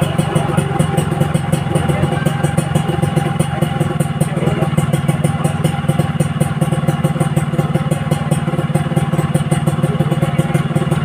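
An engine running steadily, with an even, rapid pulsing and no change in speed.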